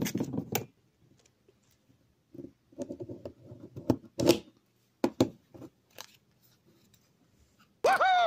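Screw hole punch pressed down through thick card with a quick run of crunching clicks, then scattered clicks and rustles as the card is handled on a cutting mat. Near the end, a brief voice-like call that rises and falls in pitch.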